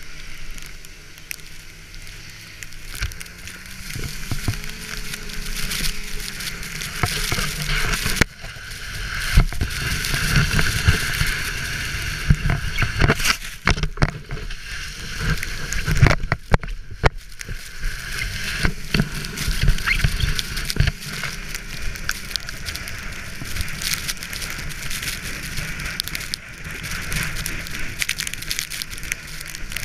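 A sled being towed fast over snow: a steady hiss and rumble of snow under it, with many knocks from bumps. The towing snowmobile's engine is heard at first, rising in pitch about three seconds in as it speeds up, then is buried under the snow noise.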